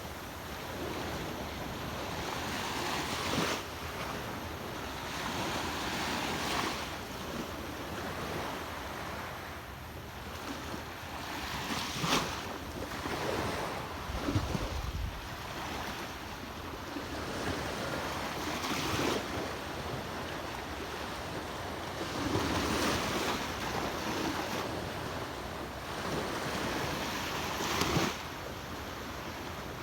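Sea waves washing onto a beach, the surf swelling and falling back every few seconds. Wind rumbles on the microphone, most strongly about halfway through.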